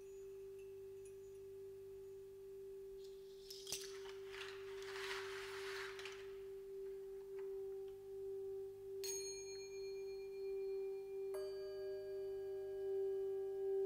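Singing bowl rubbed around its rim with a wooden stick, giving one steady humming tone that slowly swells. A rustling, jingling noise comes about four seconds in, and two light metallic strikes ring on, about nine and eleven seconds in.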